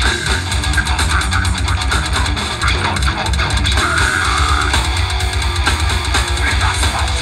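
Extreme metal band playing live at full volume: distorted electric guitar and bass over fast, dense drumming, heard from within the crowd.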